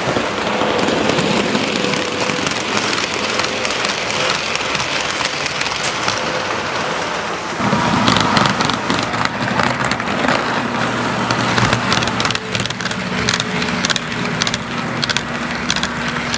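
Toy trains running on a layout: a steady rumble and clatter of wheels on track. About eight seconds in the sound turns fuller and closer, with quick clicking.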